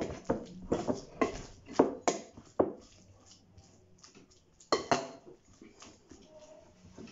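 Wooden spoon knocking and scraping against a glass mixing bowl while stirring sticky, flour-coated chicken pieces: a quick run of knocks over the first few seconds, one louder knock about five seconds in, then quieter stirring.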